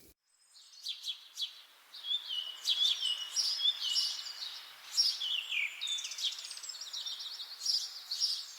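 Birds chirping and singing: a dense run of quick, high, sweeping chirps and trills.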